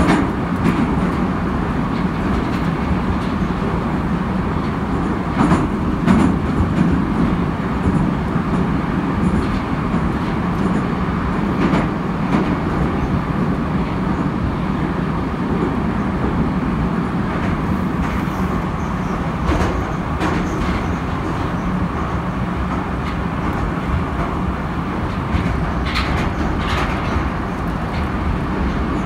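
Saint Petersburg Metro train running through a tunnel, heard from inside the carriage: a steady, loud rumble and rush of wheels on rail, with a few sharp clicks scattered through it, two close together near the end.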